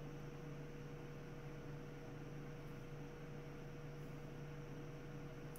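Laminar flow hood blower running with a steady hum and airflow hiss.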